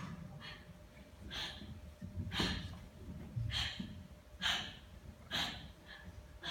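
A young karateka's sharp, forceful exhalations, one with each technique of a karate kata, coming as short hissing puffs about once a second.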